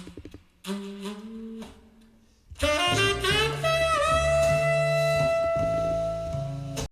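Jazz saxophone music played back through Piega Premium 501 Wireless Gen 2 loudspeakers and picked up by a microphone in the room. A few short phrases are followed by a long held note that dips in pitch briefly. The music cuts off suddenly near the end.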